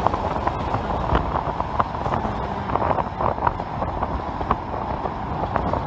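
Strong beach wind buffeting the microphone: a steady low rush with small gusty swells, from wind strong enough to lift dry sand and carry it along the beach.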